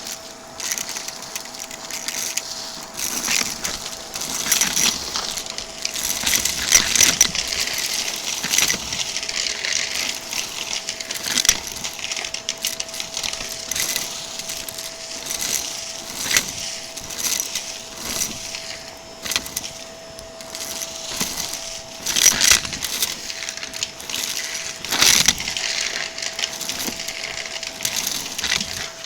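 Vacuum cleaner running with a steady motor whine while sucking up crunchy debris, which crackles and rattles as it goes up the brushroll and hose in irregular clusters of sharp clicks.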